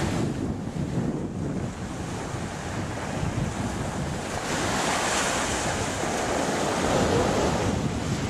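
Ocean surf washing onto a sandy beach, with wind buffeting the microphone. The wash swells louder about halfway through.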